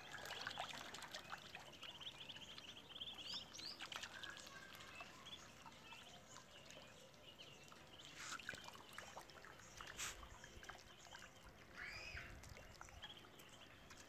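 Faint, scattered peeping of white Muscovy ducklings over light water trickling and splashing as they paddle in a shallow puddle, with one sharp click about ten seconds in.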